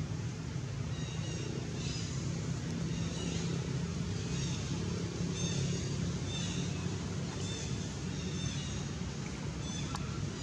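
Steady low engine-like hum, with a short high chirping call repeating about once a second over it.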